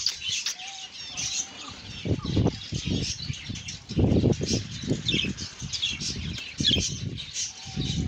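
Budgerigars chirping and twittering in quick high notes throughout, over repeated low muffled thumps that are loudest about four seconds in.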